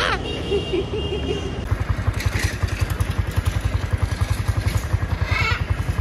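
Street traffic, with a motor vehicle's engine setting up an even, low throb from about two seconds in.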